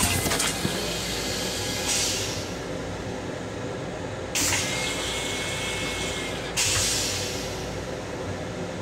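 Flush cycle of an M7 commuter-train toilet: a series of sudden hissing surges of air and water, one at the start, another about two seconds in, a louder one with a faint thin whistle about four and a half seconds in, and a last one about six and a half seconds in, each dying away. Under them is the steady rumble of the moving train.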